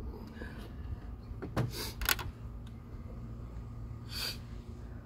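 A few light knocks and clicks of hard plastic as the radiator fan shroud is handled in the engine bay, two of them close together about a second and a half to two seconds in, then a short hissy rush near the end.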